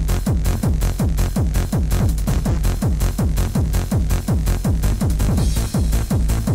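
Techno track playing: a fast, evenly driving kick drum with a pitch that drops on each hit over steady bass. A brighter hiss swells in the highs near the end.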